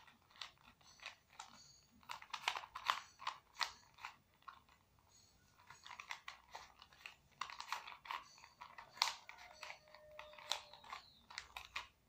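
Rubik's cube being solved by hand: rapid runs of plastic clicking and clacking as its layers are twisted, with a short lull about four seconds in.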